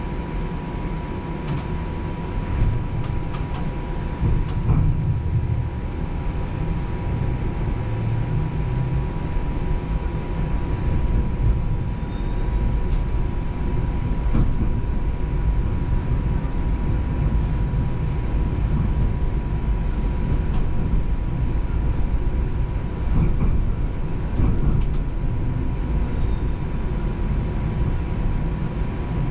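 Toronto streetcar running on its rails, heard from inside the car: a steady low rumble with a constant high hum and scattered small clicks and rattles.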